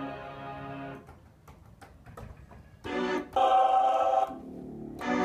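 Keyboard playing sampled organ-like chords, each held for about a second, as the rig is checked. The chords are separated by a short quiet gap with faint clicks, and the loudest chord comes about three seconds in.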